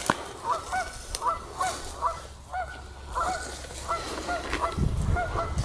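A flock of Canada geese honking repeatedly, many short two-note calls overlapping. There is a sharp click right at the start and a low rumble near the end.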